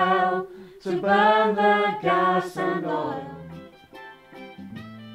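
A group of women singing a phrase together, loud at first and growing softer after about three seconds.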